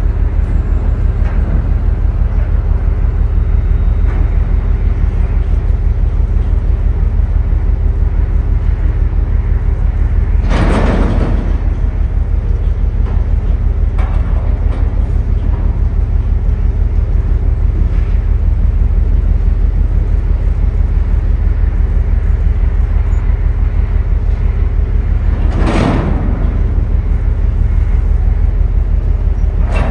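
A container crane lowering a steel shipping container onto a stack, under a steady low rumble. Two short loud bangs come about eleven seconds in and again near twenty-six seconds, as the container and spreader meet the stack.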